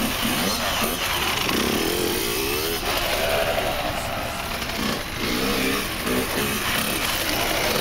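Suzuki RM 85 two-stroke dirt bike engine revving up and down repeatedly as it is ridden in tight circles.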